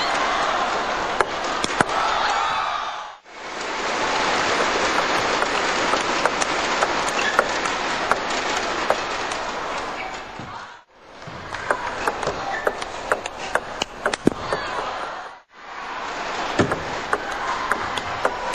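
Table tennis ball clicking off bats and table in rallies over loud arena crowd noise and applause, with the sound breaking off abruptly three times.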